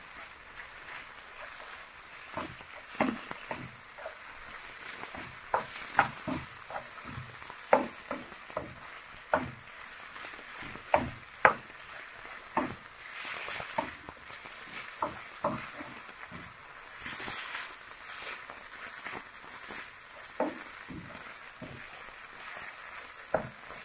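Turkey breast and onion filling frying in a frying pan while a spatula stirs it, with a steady sizzle under many irregular knocks and scrapes of the spatula against the pan. The sizzle flares up louder for about a second, about two-thirds of the way through.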